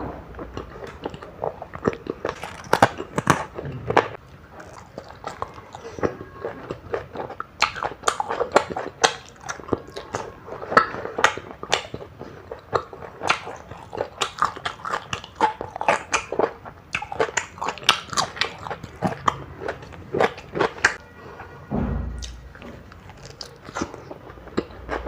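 Close-miked eating sounds: repeated crunchy bites and chewing, with many sharp crackles a second. A short low thump comes near the end.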